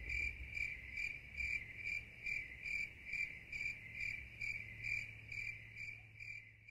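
Cricket-chirp sound effect: one even, high chirp repeating about two and a half times a second, dubbed in as the stock 'crickets' gag for an awkward silence.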